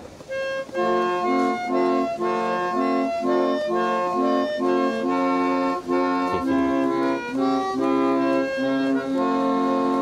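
Organette, a small reed organ with bellows played from a perforated paper music roll, playing a tune in reedy chords. It starts a moment in, moves from note to note about twice a second, and settles on a held chord near the end.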